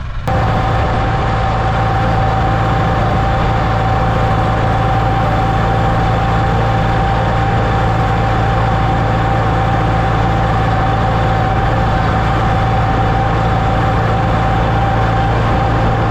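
Tractor engine running at steady speed, with a constant whine over its hum and no change in pitch or level.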